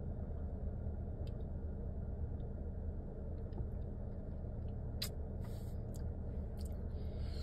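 Steady low rumble inside a car cabin, with a few faint clicks and a brief soft hiss just after five seconds in.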